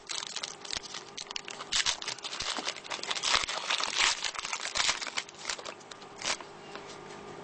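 Trading card pack wrapper being torn open and crinkled, with irregular crackling rustles that die down near the end.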